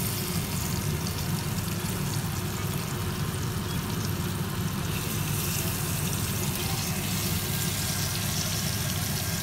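Tomato slices, some coated in flour, frying in hot oil in a nonstick pan: a steady sizzle with fine crackling.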